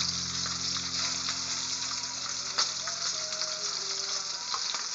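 Small turmeric-coated fish sizzling and crackling in hot oil in a frying pan, with a spatula stirring them and one sharper click about halfway through.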